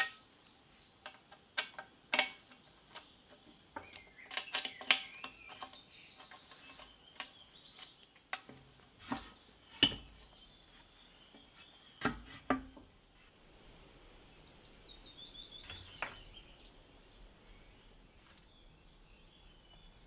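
Scattered sharp metallic clicks and clinks from a screwdriver and perforated aluminium table plates being handled on a bead roller. Near the middle the clinks stop and a bird chirps faintly in a quick run of short notes.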